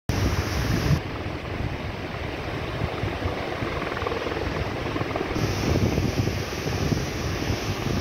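Waterfall cascading over rock steps: a steady rush of white water, with wind buffeting the microphone underneath.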